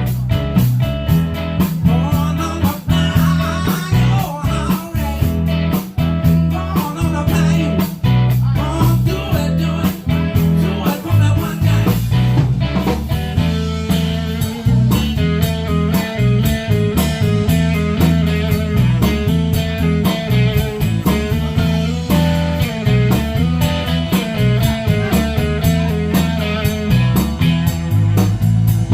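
Live band playing blues-rock: guitar over bass and a steady drum beat.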